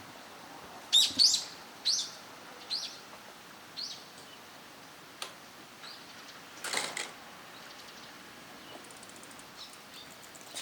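Sika deer calling: a run of short, high-pitched calls that grow fainter one after another, with a short noisy burst about seven seconds in.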